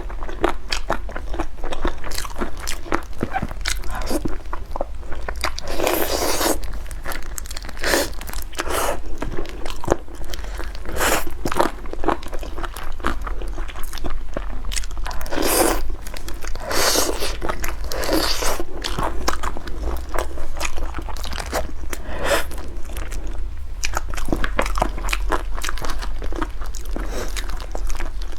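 Close-miked eating sounds: irregular crunchy bites and chewing of food, with a steady low hum underneath.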